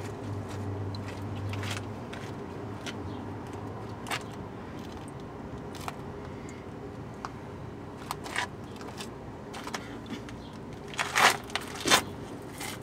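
Used engine oil trickling steadily from the oil pan into a plastic drain pan, with scattered faint clicks. Near the end, loud crunching and scraping on gravel as a person gets down on the ground beside the pan among loose wrenches.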